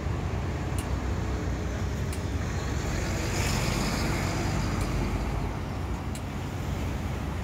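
Steady city traffic rumble as a semi-trailer truck with a flatbed trailer passes close by, its tyre and engine noise swelling and then fading near the middle. Throughout, a pedestrian crossing signal ticks at a slow, even beat, about one tick every second and a half.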